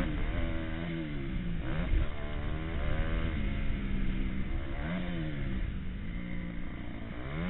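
Motocross bike engine running hard, heard from the rider's helmet camera, its revs sagging and then climbing sharply again three times as the throttle is eased and opened back up, over a steady wind rumble on the microphone.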